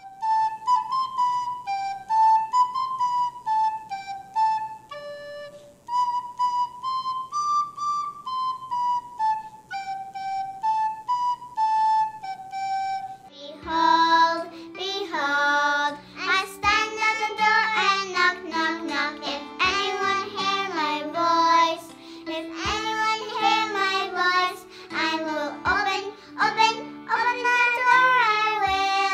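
Children's worship song. First a lone high melody line of held notes; then, from about halfway, young girls' voices come in, singing with vibrato over a fuller backing track with bass notes and sharp percussive clicks.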